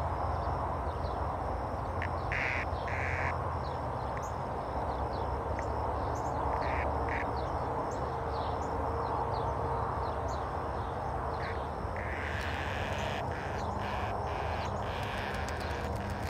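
A cicada held between the fingers gives harsh, buzzing squawks: two short pairs, about two and about seven seconds in, then a longer buzz about twelve seconds in, over a steady background hiss.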